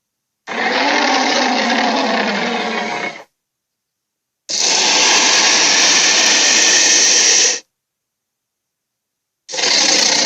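Acrocanthosaurus roar sound effects played one after another, each cut off into dead silence: a growling roar of about three seconds with a wavering pitch, then a harsher, hissier roar of about three seconds, and a third, shorter one beginning near the end.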